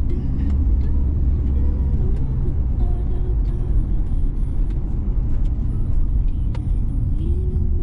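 Car driving at road speed, heard from inside the cabin: a steady low rumble of tyres and engine.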